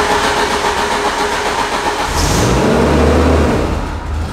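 Ride-on industrial street sweeper's gasoline engine running just after a choke start, growing louder about two seconds in and easing off slightly near the end.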